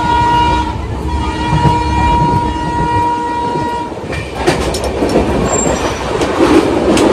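Train horn sounding a long steady blast for about four seconds, then stopping. Under it and after it, the coach's wheels rumble and clatter on the rails, heard through the open door, and the noise swells as the train crosses a bridge.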